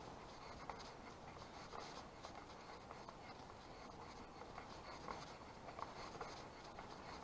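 Faint scuffing footsteps on a dirt path, with small scratchy ticks coming irregularly over a low background hiss.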